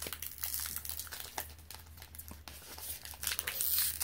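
Foil wrapper of a Pokémon Guardians Rising booster pack crinkling and tearing as the pack is opened, with a louder stretch of crackling near the end.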